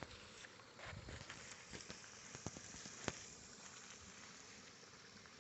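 Near silence: faint outdoor ambience with a steady high hiss and a few faint small clicks.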